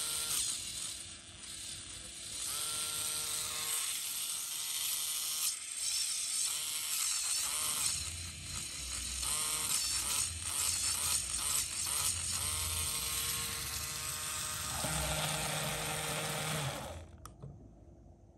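LEGO Technic gear train and limited-slip differential driven by a small LEGO electric motor: a steady whirr with rattling plastic gear teeth and a whine that rises and settles in pitch several times as the load changes. It stops about seventeen seconds in.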